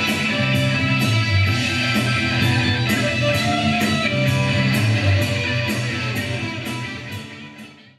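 Live rock band playing, electric guitars over drums with a cymbal stroke about twice a second, in a rough, low-quality recording. The music fades out over the last two seconds.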